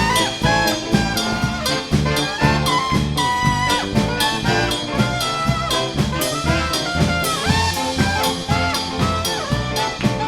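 Live swing band playing an instrumental jazz passage, with brass horns over a steady drum-kit beat.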